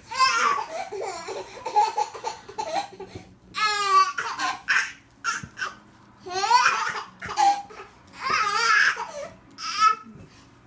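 A baby laughing and babbling in repeated high-pitched bursts, with a quick run of laughter about four seconds in.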